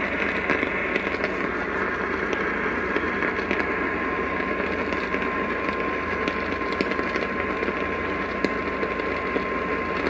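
AM radio reception hiss with scattered crackles of static. A faint steady tone comes in a few seconds in and holds.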